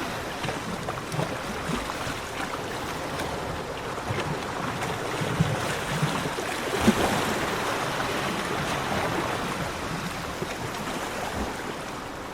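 Sea waves washing onto a beach in a steady wash with small crackles, one wave breaking loudest about seven seconds in.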